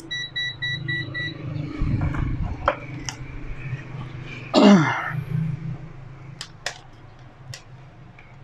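An ET8104 digital multimeter beeps about five times in quick succession as its rotary dial is switched on. About four and a half seconds in, the loudest sound is a cry that falls steeply in pitch, over a low steady hum and a few light clicks.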